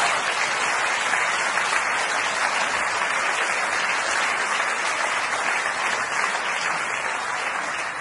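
Audience applauding steadily after a punchline: dense, even clapping from a large crowd.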